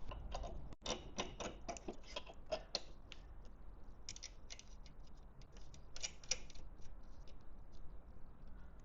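Plastic zip ties being pulled tight around cables, their ratchet teeth clicking in several quick runs of sharp clicks.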